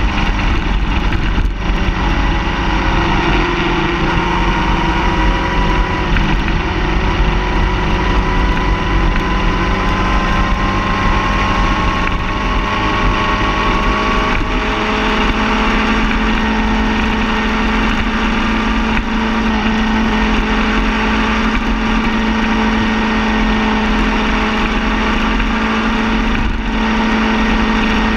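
Car engine running steadily, its pitch climbing slowly over the first half and then holding level.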